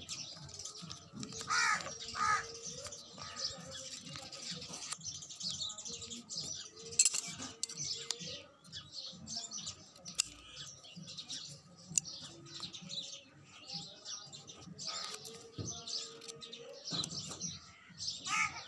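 Small birds chirping again and again in the background, while large steel scissors snip through folded paper and the paper rustles in the hands. One sharp click about seven seconds in is the loudest sound.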